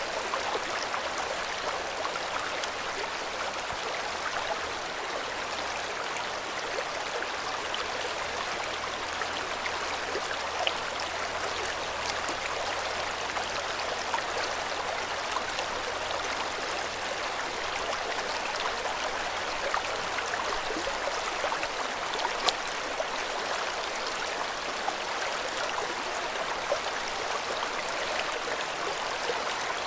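River water flowing steadily, a continuous rushing with small splashes here and there.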